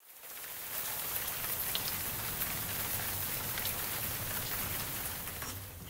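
Steady rain falling, fading in over the first second: a recorded rain-sounds track.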